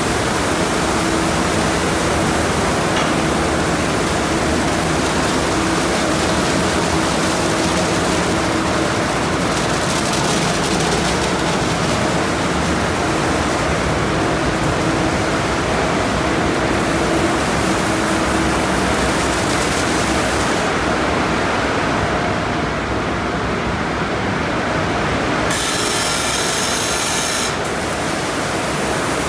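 Car wash tunnel brushes: spinning blue foam and cloth wash brushes scrubbing and slapping along a car's body, over steady water spray and a faint motor hum. A brighter spray hiss comes in for about two seconds near the end.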